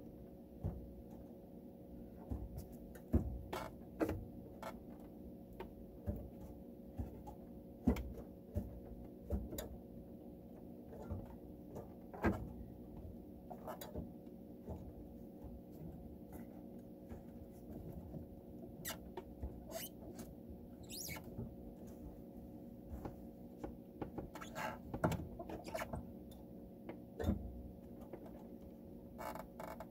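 Wooden organ pedals being pressed and released by feet in soft slipper socks: irregular clicks, knocks and small squeaks of the pedal mechanism, over a steady low hum.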